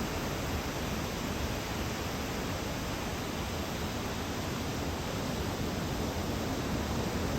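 Steady roar of breaking surf from a typhoon swell: an even, unbroken wash of noise with no single wave crash standing out.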